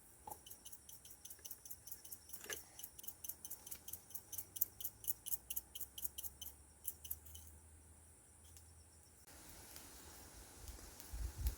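Insects chirping in a quick, even rhythm of about five chirps a second over a steady high-pitched hum; the chirping stops about seven and a half seconds in, and a faint steady hiss follows near the end.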